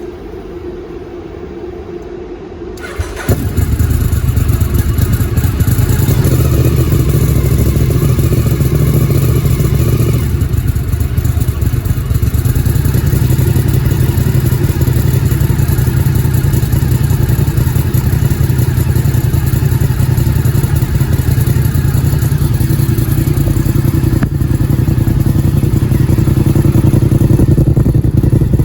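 1000 cc V-twin sport-bike engine being started to warm up. A quieter engine sound comes first, then about three seconds in a much louder engine starts. It settles into a steady idle.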